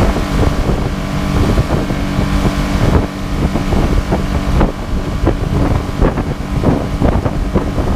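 Mercury outboard motor running steadily with the boat under way at speed, with water rushing along the hull and wind buffeting the microphone.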